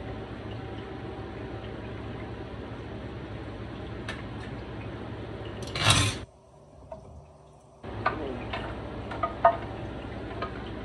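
Kitchen cooking sounds: a pan of chicken fajitas cooking on the stove with a steady hiss, a few clinks of a utensil against the pan, and one loud scrape about six seconds in.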